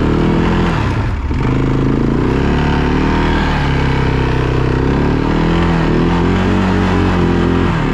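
Arctic Cat ATV engine running while the quad is ridden, its pitch rising and falling with the throttle. It drops off briefly about a second in, then climbs again.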